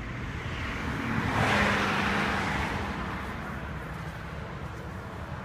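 A motor vehicle passing by: its noise swells to a peak about two seconds in, then fades away.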